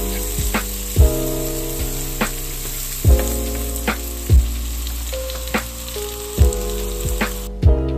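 Chicken pieces sizzling in an oiled nonstick frying pan as they are stirred with a wooden spatula, under background music. The sizzling cuts off abruptly near the end.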